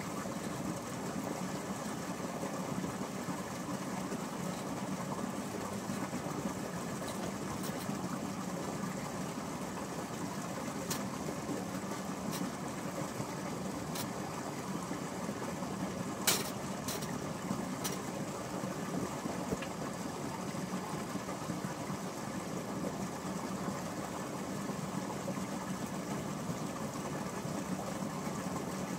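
A steady motor hum runs throughout, with a few sharp clicks, the loudest about sixteen seconds in.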